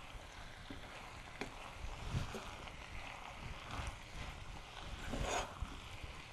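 Wooden spatula stirring and tossing pasta and bell peppers in a nonstick pot: a few soft scrapes over a low hiss, the loudest about five seconds in.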